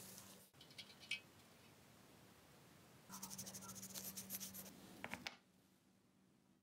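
Faint scratching and rubbing of gloved fingers working a washer on a small black metal bracket, a quick run of strokes lasting about two seconds in the middle, over a faint steady hum. A few light clicks come near the start.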